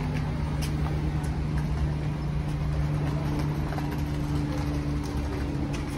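Steady low mechanical hum, an even drone with faint scattered ticks over it.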